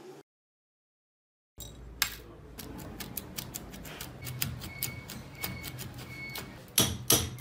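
After a second or so of silence, light clicks and knocks as a rusty hammer head is handled on its stuck wooden handle. Near the end comes a run of loud, sharp blows, about three a second, as the stuck handle is struck to work it out of the head.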